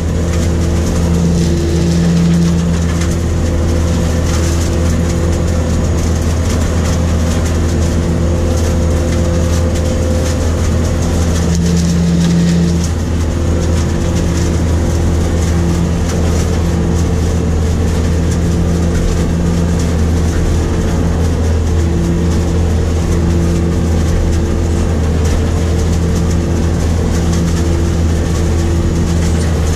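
New Holland grape harvester working a vine row, heard from inside the cab: a constant engine and machinery drone with several steady hums, one of them swelling and fading every few seconds.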